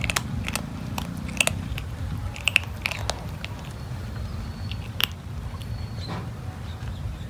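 Kitten eating, its chewing heard as irregular short sharp clicks, thickest in the first three seconds with a louder one about five seconds in.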